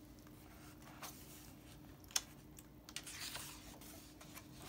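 Faint handling of a hardcover picture book as a page is turned: a sharp tap about two seconds in, then a brief papery swish of the turning page.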